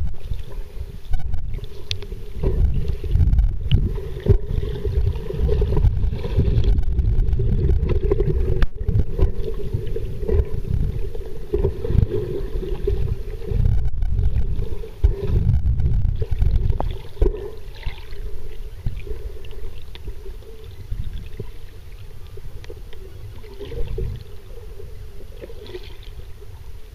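Muffled underwater water noise heard through a submerged camera: a heavy low rumble of water moving against the housing, with scattered clicks and knocks and a low hum that fades out about two-thirds of the way through.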